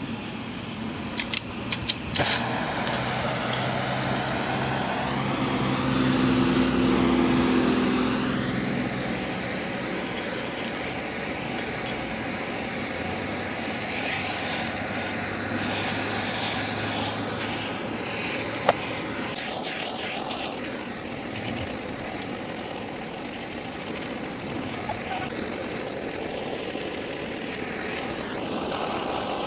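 A blowtorch is clicked several times about a second in and catches, then runs with a steady hiss as its flame heats the steel sleeve of a rubber engine-cradle bushing until the rubber melts, so that the bushing can be tapped out. A single sharp click comes near the middle.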